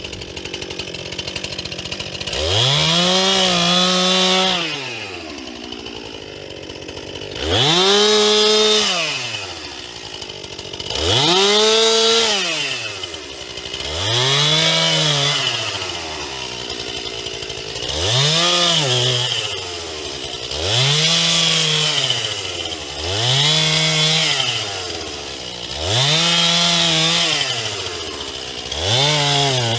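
Stihl MS 261 two-stroke chainsaw bucking logs into rounds: it is throttled up to full speed for a cut of a second or two, then drops back to idle, about nine times in a row.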